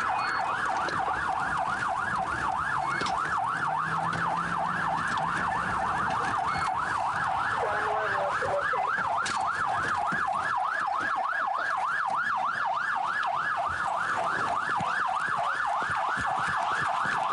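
Police car siren on a fast yelp, its pitch sweeping up and down about three times a second without a break, heard over road noise from inside a moving patrol car during a pursuit.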